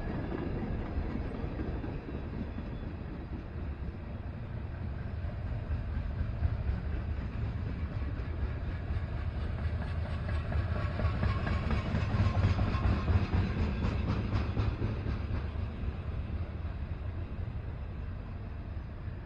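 Freight train cars rolling past: a steady rumble of steel wheels on rail, with wheel clicks over the rail joints, swelling about ten to fourteen seconds in.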